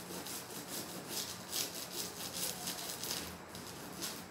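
A fingernail scratching rapidly and repeatedly at the plastic wrapping of a comic book, trying to pick it open; the scratching stops about three seconds in.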